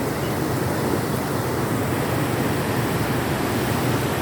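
Steady rushing wash of floodwater through a flooded street.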